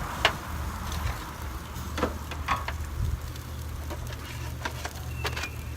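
Metal grilling tongs clicking and tapping against a charcoal grill's grate as thin steaks are lifted off, a handful of sharp clicks at irregular intervals over a steady low hum.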